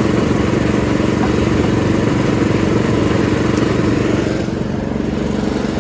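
Engine-driven sugarcane juice machine running steadily, its small engine firing evenly as a cane stalk is fed through the crushing rollers. It goes a little quieter about four seconds in.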